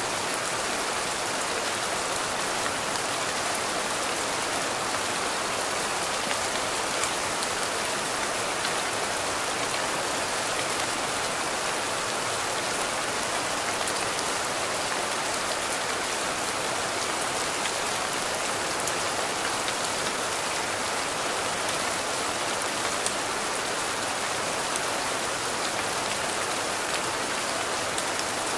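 Steady rain falling: a dense, even hiss of drops with faint individual drop ticks scattered through it.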